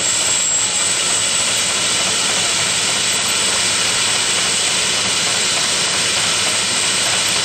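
1904 steam fire engine running at a pumping demonstration, giving off a steady hiss of steam.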